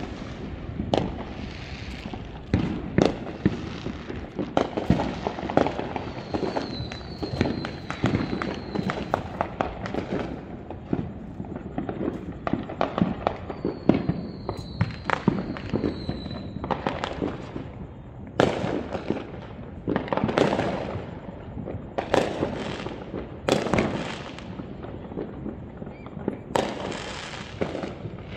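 Distant fireworks going off again and again: an irregular run of bangs and booms, each trailing off in an echo, with several heavier bursts in the second half.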